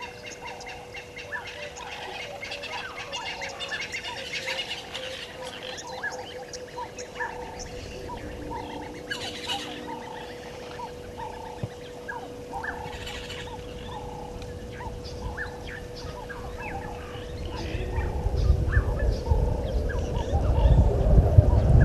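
Wild birds calling, with many short chirps and squawks repeated in quick series. In the last few seconds a low rushing noise builds and becomes louder than the birds.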